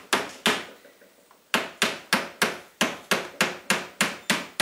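Rubber mallet tapping a small wooden shim into a pinball cabinet: two taps, a pause of about a second, then a steady run of about three taps a second.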